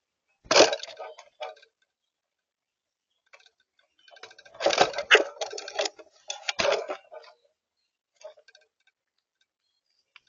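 Grackle calling in bursts of rapid clicking and rattling notes: a short burst about half a second in, a longer run from about four to seven seconds, and a brief one near the end.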